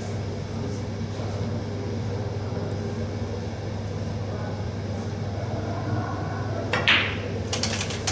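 Steady low room hum, then about seven seconds in a sharp click as a snooker cue strikes the cue ball, followed about half a second later by a quick run of clicks as the balls collide and a red is potted.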